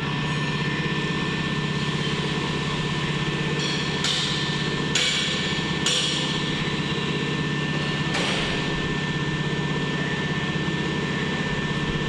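Overhead crane hoist running with a steady electric hum and a thin high whine while lifting a railway coach bogie on chains. A few sharp metal clanks come between about four and eight seconds in.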